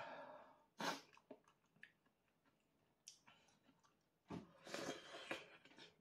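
Close mouth noises of a person eating a spoonful of rice porridge in miso ramen broth: chewing and short breathy bursts, with a few faint clicks in between and a longer patch of eating noise about four seconds in.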